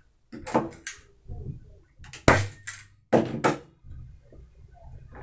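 Fingers tapping the face of a stretched linen canvas on its wooden stretcher: about four sharp taps with a low thump, spread over three seconds.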